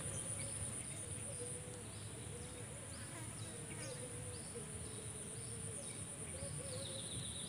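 Insects in a rice field: a steady high-pitched buzz with short chirps repeating a little more than once a second.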